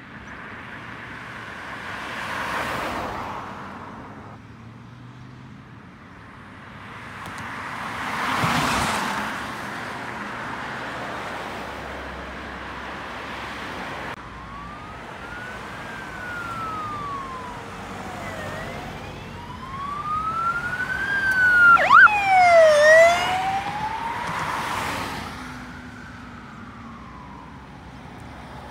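Two cars pass on the road, then a police car siren wails in slow rising and falling sweeps. About two-thirds of the way through it switches briefly to a fast, loud yelp, then goes back to the wail and stops near the end.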